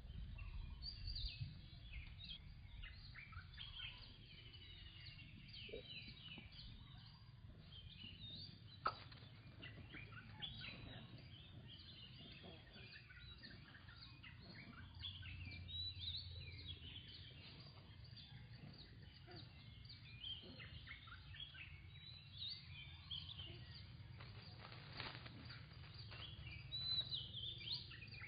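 Many small birds chirping over a faint, steady low rumble of background noise, with one sharp click about nine seconds in.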